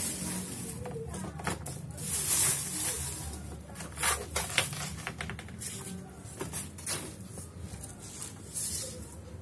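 A plastic bag rustling and a broom's bristles swishing over a tiled floor in separate strokes, with a few light knocks of a plastic dustpan.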